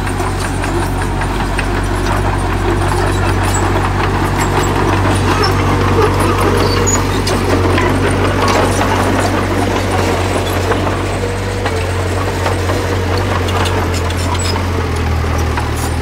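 Heavy diesel engine of earthmoving machinery running steadily, its engine note shifting slightly a few times, with scattered faint clanks.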